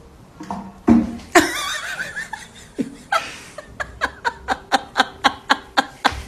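A person laughing, ending in a quick rhythmic run of laughs, about five a second.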